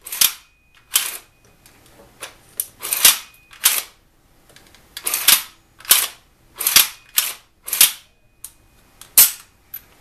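Sharp metal clacks and clicks from an Ithaca Mag-10 10-gauge semi-automatic shotgun being worked by hand during reassembly, its parts snapping into place. There are about a dozen clacks at uneven spacing.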